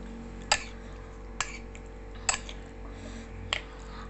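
Utensils clinking against a bowl while eating, four sharp clicks about a second apart over a steady low hum.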